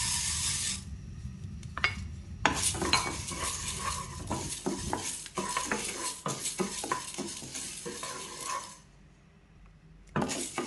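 Dry split moong dal poured into a dry nonstick frying pan, a brief rattling hiss of grains, then a wooden spatula stirring and scraping the lentils around the pan with many small clicks as they dry-roast until fragrant. The stirring stops for about a second near the end and starts again.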